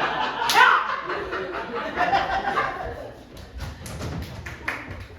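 Theatre audience laughing, the laughter dying away after about three seconds, followed by a few light taps.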